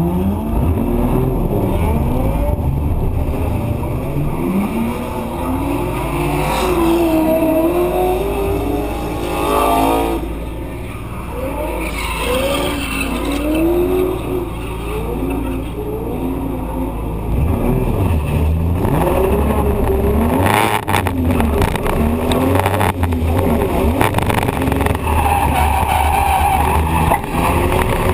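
Drift car's engine revving hard, its pitch repeatedly rising and falling with the throttle and gear changes, then holding a steadier drone under a rushing noise of sliding tyres as the car drifts.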